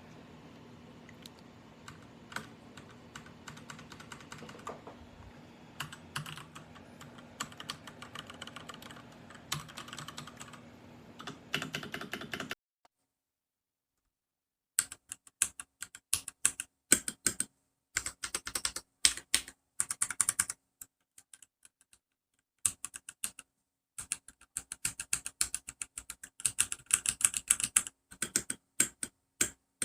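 Typing on a Royal Kludge RK R87 mechanical keyboard: rapid runs of keystroke clicks over a faint steady hum. About halfway through the sound cuts to a couple of seconds of dead silence. Louder, crisper bursts of keystrokes with short pauses follow.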